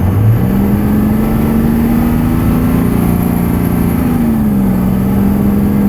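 Cummins 5.9 inline-six diesel held at high revs, around 3,000 RPM: the pitch jumps up at the start, climbs slowly, then eases back down about four seconds in. It is run up to bring out a faint thump that the owner thinks is a worn main bearing or the crankshaft hitting the thrust bearing, not rod knock.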